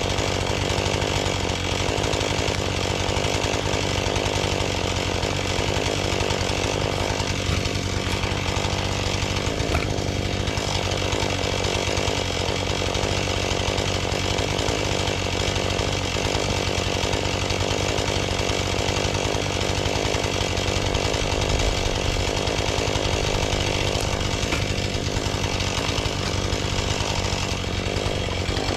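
Husqvarna 435 two-stroke chainsaw running steadily and without a break.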